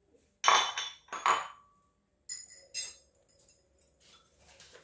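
Metal spoon knocking against ceramic dishes: two loud knocks about half a second apart, the second ringing briefly, then two lighter clinks near the middle, followed by faint small knocks.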